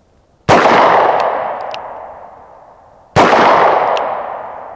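.38 Special handgun fired twice, about two and a half seconds apart; each shot is a sharp report followed by a long, fading echo.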